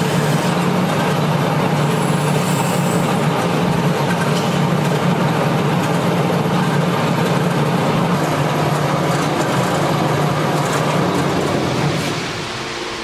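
Marvel Series 8 Mark I vertical band saw cutting through a round steel tube: a steady motor hum under a dense, even hiss of the blade cutting the metal. Near the end the sound drops to a quieter steady running hum.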